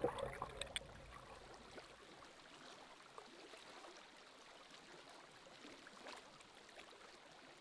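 Faint flowing stream water with small scattered ticks, dropping to very quiet after the first second.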